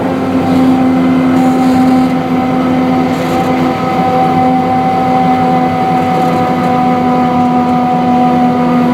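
15-inch gauge diesel miniature locomotive with hydraulic drive running at a steady speed: a loud, even engine drone with a steady whine that holds one pitch.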